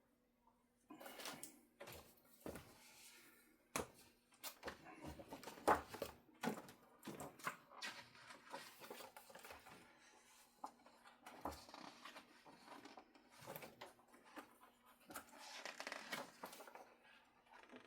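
Hands working with small guitar parts at a bench: irregular light clicks, taps and rustles. A faint steady hum sits underneath.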